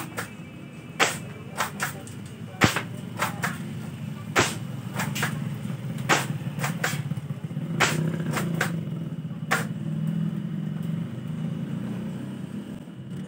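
Spring-powered airsoft pump shotgun, a Mossberg 590A1 replica, fired repeatedly. About six sharp shot cracks, each followed by the double clack of the pump being racked back and forward to re-cock the spring, come roughly every one and a half to two seconds and stop about three-quarters of the way in. A low steady rumble runs underneath.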